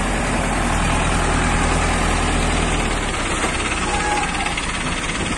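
A loader's diesel engine running steadily with a low hum that changes and thins about three seconds in.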